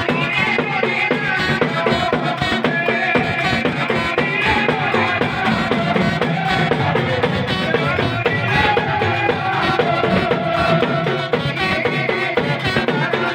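Loud Gujarati folk devotional music with a fast, steady drum beat under a wavering melody line.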